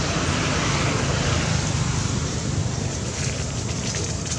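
Steady outdoor background noise: a low rumble under an even hiss, with a few faint ticks near the end.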